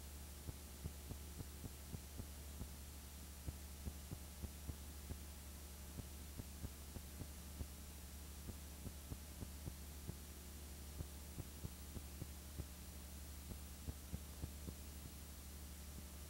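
A steady, quiet low electrical hum with faint irregular clicks, about two or three a second, on the soundtrack of a silent home-movie transfer.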